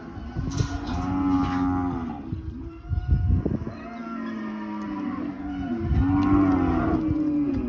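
Cattle bawling: several long, overlapping moos, one after another.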